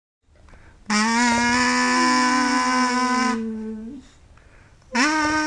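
Kazoo played in long buzzing held notes: one starting about a second in and trailing off after three seconds, then a higher one starting near the end.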